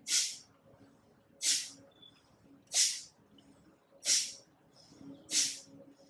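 Kapalabhati breathing: short, forceful exhalations pushed out through the nose about every 1.3 seconds, five in all. Each is a sharp hiss that fades quickly.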